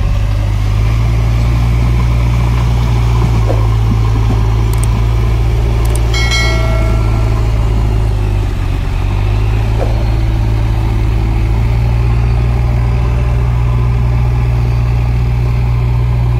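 Heavy diesel engine running steadily under work, its note shifting about a second in and again near nine seconds. A brief high, ringing tone sounds about six seconds in.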